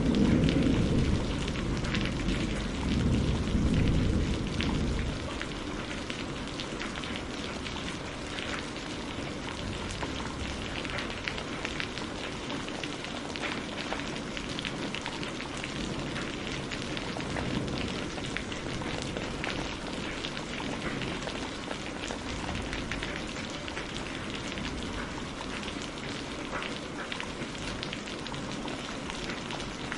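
Steady rain, a dense even hiss with many fine drop ticks. A low rumble of thunder dies away over the first five seconds.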